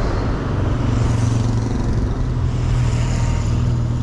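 Street traffic noise with a vehicle running close by: a steady low hum.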